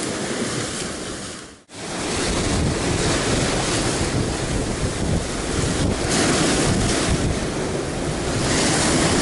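Rough sea surf breaking and washing over a rocky shore, a steady rushing noise that grows louder over the last few seconds, with wind buffeting the microphone. The sound cuts out for an instant about a second and a half in.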